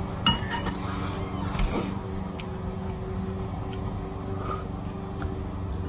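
A steady low hum, with a few sharp clicks and rustles in the first two seconds.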